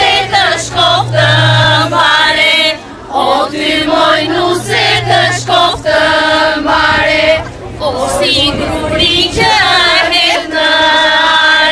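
A group of voices singing a folk song together in long held notes. A low steady tone sounds under the voices twice in the first half.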